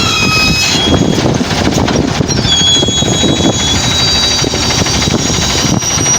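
Garbage truck working: its diesel engine runs under load with a dense rattling clatter, while high-pitched hydraulic whines come and go over the top, a couple of them sliding slightly down in pitch.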